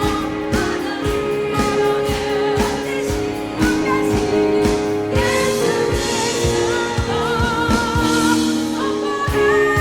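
Church vocal ensemble singing a Christmas carol in harmony over an accompaniment with a steady beat, one voice carrying a line with vibrato.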